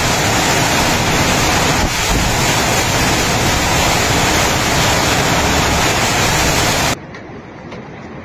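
Typhoon wind and torrential rain in a loud, steady rush, with the gale buffeting the phone's microphone. About seven seconds in it cuts off abruptly to a much quieter rush of wind.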